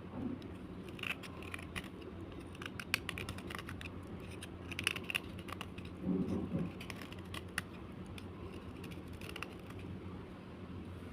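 Slate being scraped, heard as irregular crisp, crunchy clicks and crackles, over a steady low hum.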